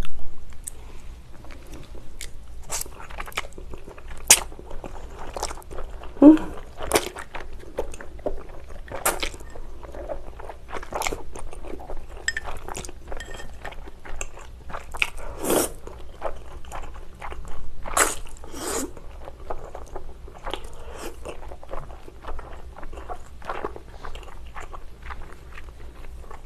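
Close-up eating sounds of a person slurping and chewing thick Chinese glass noodles coated in spicy sauce: wet mouth clicks and smacks coming irregularly, with a few longer slurps.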